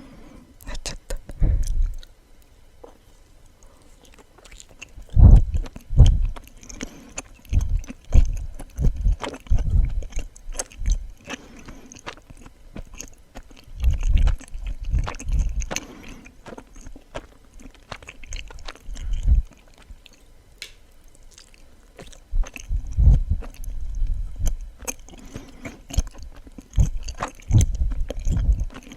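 Close-miked chewing of suama, a soft, chewy Japanese rice-flour sweet, with small wet mouth clicks. It comes in four bouts separated by short pauses.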